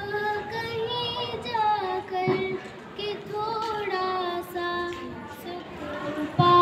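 A young girl singing solo into a microphone, holding long, slightly wavering notes in phrases with a few short breaks for breath.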